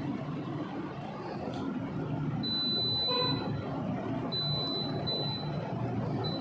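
Vacuum pump running steadily while it pulls a vacuum on a van's A/C refrigerant system. A thin high beep sounds on and off several times from the middle on.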